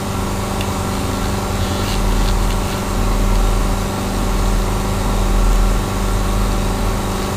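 Dental equipment running with a steady, even hum during root canal irrigation and sonic activation.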